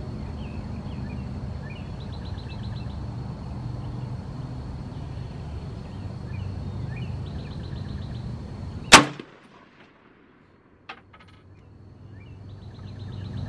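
A single shot from a PSA AK-47 pistol, sharp and loud, about nine seconds in, with a faint click about two seconds later. Before it there is steady outdoor background with faint chirping.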